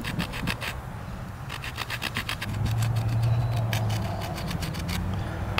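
Stone flake sawing back and forth into a wooden hearth board, cutting the notch for a hand-drill friction fire: quick scraping strokes, about three or four a second, with a short pause about a second in. A low steady hum runs underneath.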